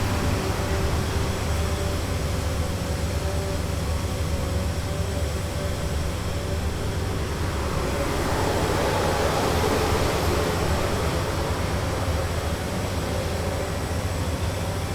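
Busy city street ambience: a steady low rumble of traffic with a faint steady hum, and a louder vehicle passing that swells about eight seconds in and fades again about three seconds later.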